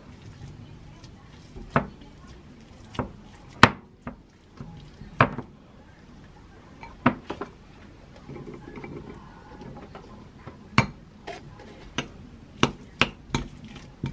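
Metal spoon clinking and scraping against a glass mixing bowl while mashing cooked sweet potato, in sharp irregular clinks. Around eight seconds in, a soft rustle as corn kernels are tipped into the bowl.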